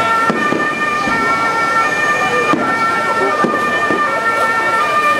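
Fireworks shells bursting several times, over a continuous high tone that steps between a few pitches.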